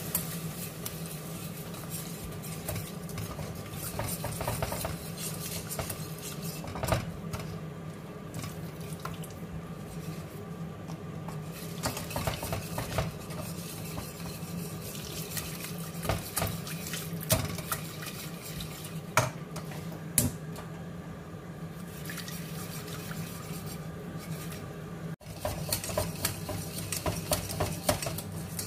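A wire whisk stirring and scraping in a stainless steel saucepan, working milk into a flour roux for béchamel sauce, with scattered sharper clinks of the whisk against the pan over a steady low hum.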